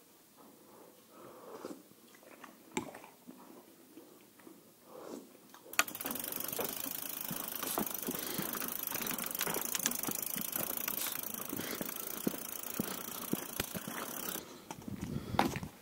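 Quiet room tone with a few faint clinks of a metal spoon stirring in a ceramic mug. About six seconds in it changes abruptly to a steady hiss with scattered light ticks and crackles, which cuts off near the end.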